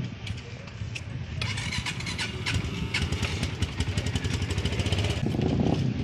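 Yamaha motorcycle engine running, getting louder about a second and a half in.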